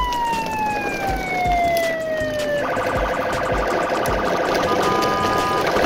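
Electronic siren-like wail: a tone that sweeps up, then slides slowly down for almost three seconds. It then switches abruptly to a steady, buzzing electronic tone pattern.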